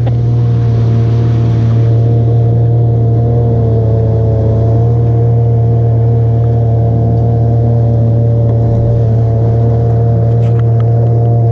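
Outboard motor of a small aluminum jon boat running steadily at cruising speed, holding one even pitch, with a rush of water and wind past the hull.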